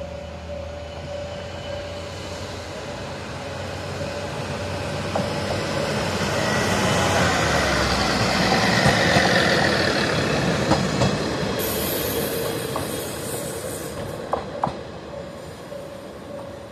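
Aizu Railway AT-700 diesel railcar approaching, running past close by and pulling away. Its engine and wheel noise swells to a peak about eight to ten seconds in and then fades, with a few sharp clicks from the wheels as it moves off.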